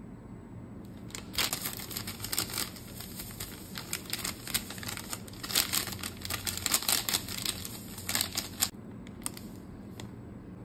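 Crinkling of a Knorr Sinigang mix seasoning sachet as it is handled and its powder is shaken out. The dense crackle starts about a second in and stops a couple of seconds before the end, with a few lone clicks after it.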